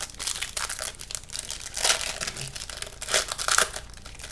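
Foil trading-card pack wrapper crinkling and tearing as it is opened, in uneven bursts, loudest about two seconds in and again at about three and a half seconds.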